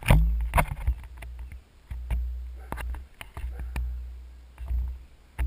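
Wind buffeting the microphone during a high-speed longboard fly-by: several deep rumbling gusts that each start sharply and die away, with sharp knocks and clicks between them.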